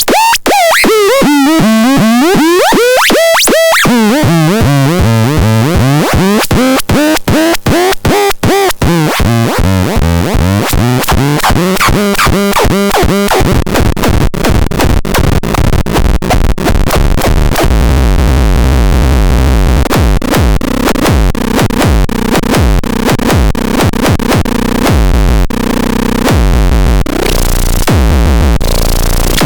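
Electronic synthesizer sounds: warbling, sweeping pitch glides chopped into rapid stutters, changing about halfway into a dense buzzy texture over a pulsing low bass.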